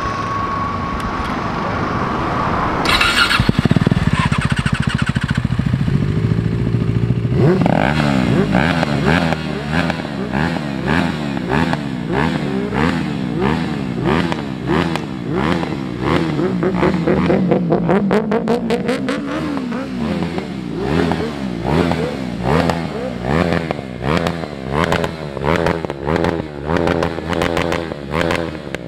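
Benelli TNT 600i inline-four and KTM RC 390 single-cylinder motorcycle engines running together, very loud. From about a quarter of the way in they are revved in quick, repeated throttle blips, the pitch rising and falling with each one.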